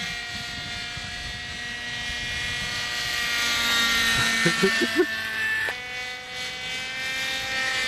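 Webra 50 two-stroke glow engine of a radio-controlled coaxial helicopter running in flight, a steady high-pitched whine with rotor hum. Its pitch drifts slightly, then jumps up suddenly near the end.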